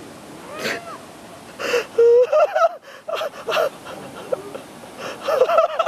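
Short bursts of voices shouting and yelping without clear words, with the loudest yell about two seconds in and more near the end.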